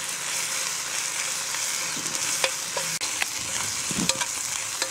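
Sliced onions, shallots and ginger-garlic paste sizzling in hot oil in a black wok, stirred with a slotted metal spoon that clicks and scrapes against the pan a few times.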